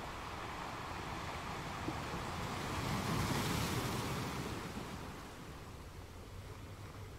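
Rushing water noise like a wave, swelling to its loudest about three to four seconds in and then fading away.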